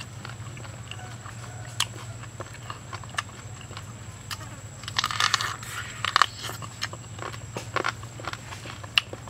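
Eating cooked pig leg by hand: chewing and the skin and meat being pulled apart, with scattered sharp clicks and a denser crackling stretch about five to six seconds in.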